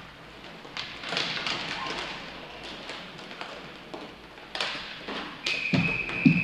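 Inline hockey play: scattered sharp clacks and thuds of sticks and puck, louder near the end. A steady high tone starts about five and a half seconds in and holds.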